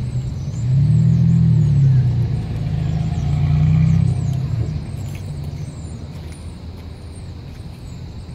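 A motor vehicle engine running, its low rumble swelling louder twice in the first half and then easing off.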